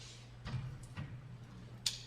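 Screwdriver working the master link off a roller step chain: a few sharp metallic clicks, the sharpest near the end, over a steady low hum.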